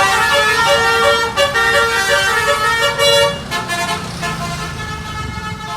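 Indonesian 'telolet' bus horn: a multi-tone horn playing a quick tune of stepping notes, which stops about three and a half seconds in. After it a low engine rumble carries on.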